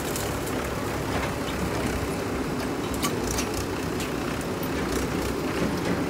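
Diesel engines running steadily: a JCB 3DX backhoe loader working its backhoe arm, with tractor engines idling alongside. A few faint clicks and knocks sound over the drone.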